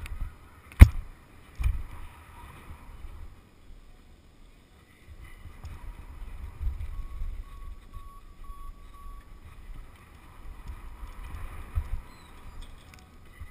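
Wind noise buffeting a helmet-mounted camera's microphone while riding a BMX bike down a dirt track, rising and falling with speed. A sharp knock comes just under a second in and a smaller one about a second later.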